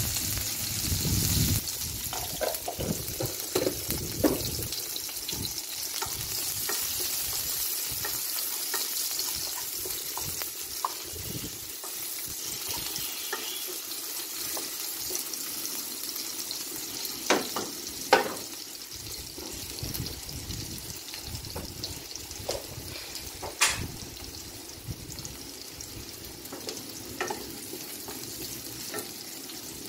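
Sliced onions sizzling in hot oil in a wok, loudest just after they go in and settling into a steady fry. A wooden spatula knocks sharply against the pan a few times as they are stirred.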